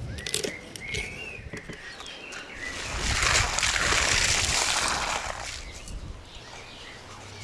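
A few knife taps on a wooden cutting board, then a steady hiss of water spraying over raw quail in a bowl for about two and a half seconds.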